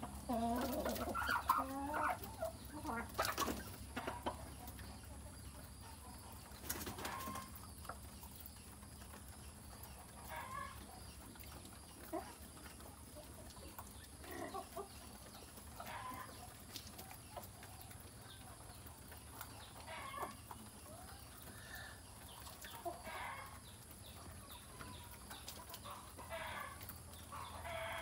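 A flock of chickens clucking as they feed. A busier burst of clucking with wing flapping comes in the first few seconds. After that come scattered short clucks every couple of seconds.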